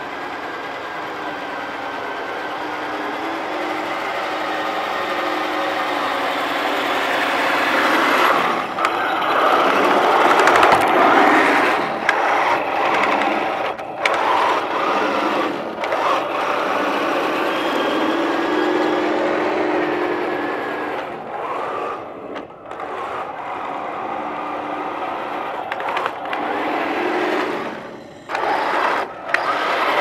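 Homebuilt wooden 1:16 remote-control Maus tank with a Heng Long 5.3 system, running: the unit's simulated tank engine sound mixed with the whine of its drive gearing and the clatter of its tracks on concrete. It grows louder over the first ten seconds as the tank comes close, then stays steady with scattered clicks.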